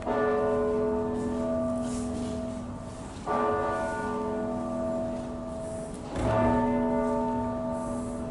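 A large church bell tolling: three strikes about three seconds apart, each ringing on and fading into the next.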